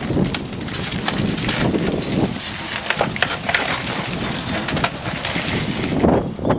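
Wind buffeting the microphone, with irregular metallic knocks and scrapes of a steel bar prising an old rusted steel angle-iron lintel out of brickwork.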